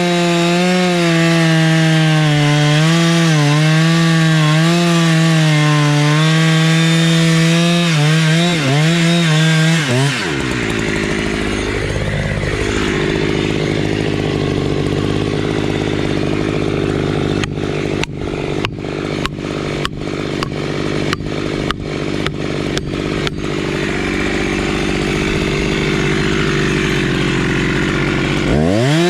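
Two-stroke chainsaw running at full throttle in a cut, its pitch wavering as the chain loads in the wood. About ten seconds in the high engine tone drops away to a lower, rougher sound with a quick run of sharp knocks past the middle, and the saw revs back up near the end.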